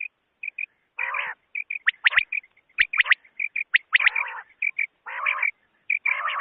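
Common quail calling: quick, sharp high notes in twos and threes, broken by four longer, rougher-sounding bursts about a second apart in the second half.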